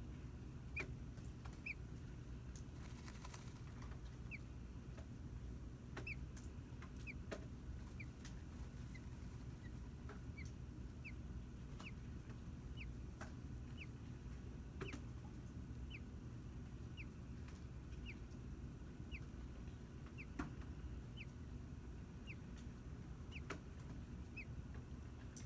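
Faint short high peeps, repeating irregularly about once or twice a second, over a steady low hum with a few soft clicks.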